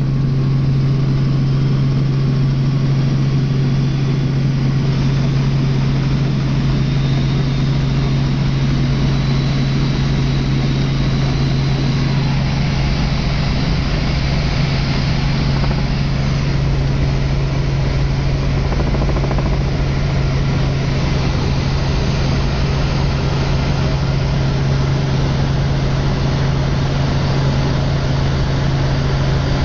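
Helicopter engine and rotor noise heard from aboard: a loud, steady drone with a strong low hum that does not change.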